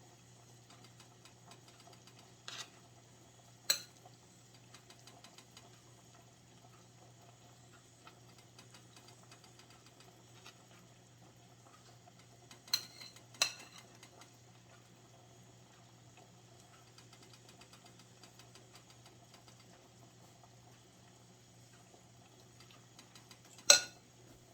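A spoon or other utensil clinking against dishes a handful of times while food is served onto a plate: about five sharp clinks spread out, the loudest near the end, over a faint steady hum.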